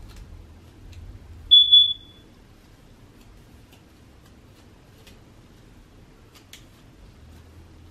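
Smoke alarm chirping once, a short high-pitched beep about a second and a half in: the low-battery warning of an alarm whose batteries need changing.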